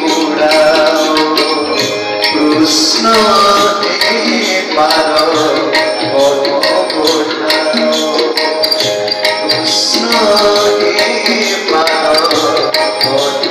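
Live Indian devotional music: a keyboard melody with steady drumming.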